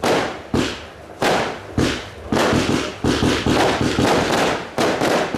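Fireworks going off in a rapid series of bangs, about two a second, each followed by a short fading rumble; the bangs crowd into an almost continuous volley in the middle.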